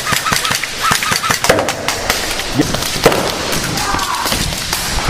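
Airsoft guns firing: rapid strings of sharp snapping shots, densest in the first second or so and more scattered after, with voices mixed in.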